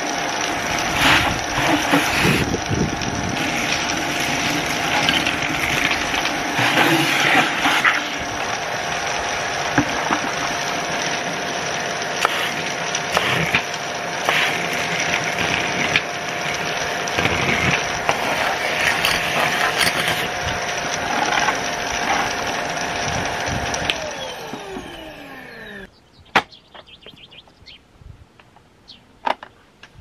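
Kärcher AD 4 Premium ash vacuum cleaner's 600-watt motor running with a steady whine, ash and small charcoal pieces crackling and rattling as they are drawn up the metal tube and hose. About 24 seconds in it is switched off and the motor winds down, falling in pitch over two seconds, followed by a few sharp clicks.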